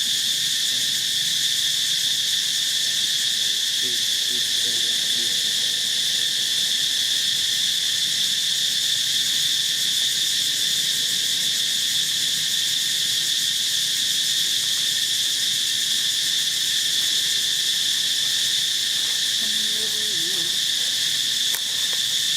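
Steady, high-pitched insect chorus, a continuous buzz that holds without a break. Faint low calls or voices come in briefly about four seconds in and again near the end.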